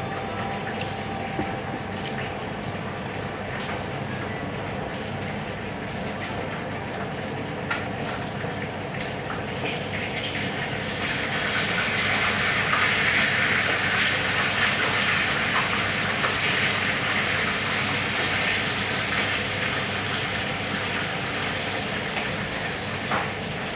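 A steady hum and rushing noise that swells into a louder hiss about ten seconds in and eases off again near the end.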